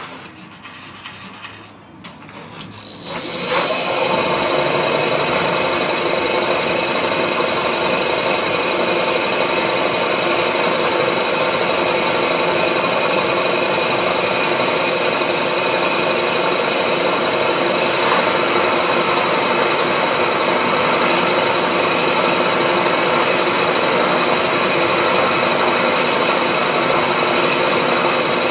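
Machine tool's motor starting about three seconds in and spinning up, then running steadily with a high whine.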